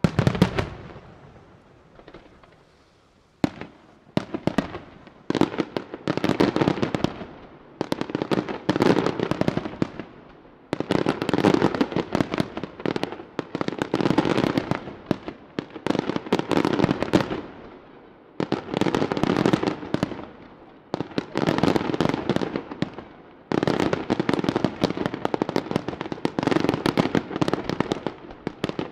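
Aerial fireworks display: a sharp bang at the start, then from about four seconds in, dense clusters of rapid crackling pops from bursting shells, one cluster after another.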